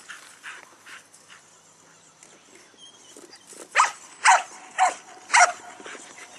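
Dogs barking: a few faint barks at first, then four loud barks in quick succession, about half a second apart, in the second half.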